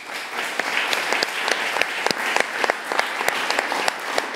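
Audience applauding, many hands clapping together, swelling in the first half second and then holding steady.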